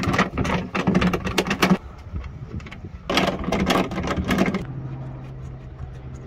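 Ratchet wrench clicking rapidly in two bursts as it undoes the nuts holding a rear wiper motor to the tailgate.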